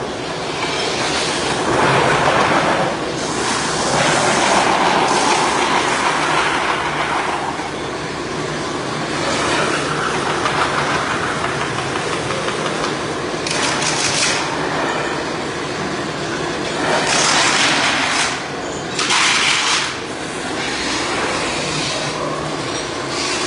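Metal-spinning lathe turning a large sheet-metal satellite dish while a tool presses the metal into shape: a steady mechanical running noise, with three brief louder hissing stretches about two-thirds of the way through.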